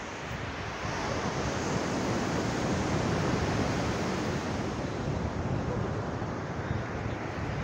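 Surf washing on a sandy beach, a steady rush of noise that builds slightly over the first couple of seconds.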